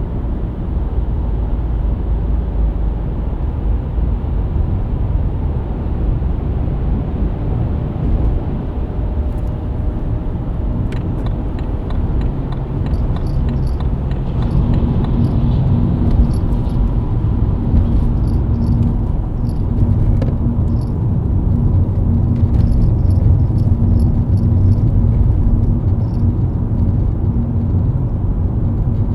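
BMW E90 323i's inline-six engine running at cruise on the expressway, its drone mixed with tyre and road noise. About halfway through the engine note steps up a little louder with a steady hum, and faint regular ticking can be heard in the second half.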